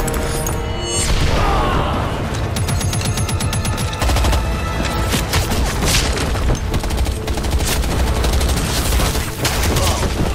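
Dense battle sound effects: rapid gunfire, including machine-gun fire, and explosions with a deep rumble, mixed with a film score.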